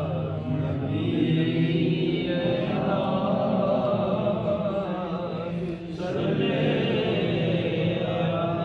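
Voices chanting the salawat, the blessing on the Prophet, together in a slow, continuous melody, with a brief break about six seconds in.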